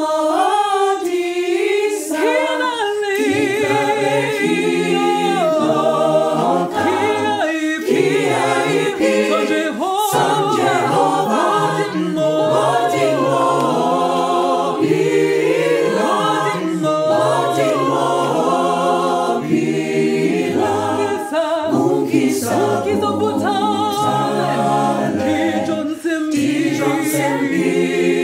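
Mixed-voice a cappella group singing a song in harmony, with no instruments. Higher voices open, and low voices join about three seconds in.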